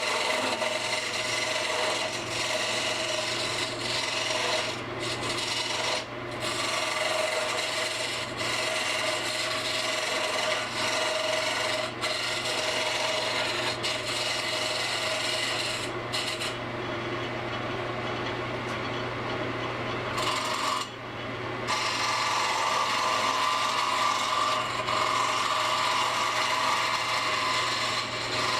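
A gouge cutting a spinning cedar blank on a wood lathe: a continuous scraping and shaving sound over the steady hum of the lathe motor. It breaks off briefly a few times as the tool is lifted away.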